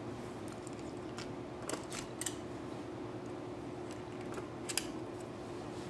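Light metallic clicks of a circular sock machine's latch needles being lifted one by one in the cylinder slots, scattered and irregular, with a small cluster about two seconds in and another near the end. A faint steady hum lies underneath.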